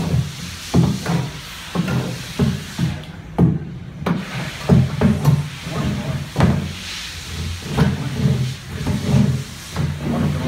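Plastic wall-mounted trash can knocking and scraping against its wall bracket as it is worked back onto the mount, in a run of irregular thuds about every half second.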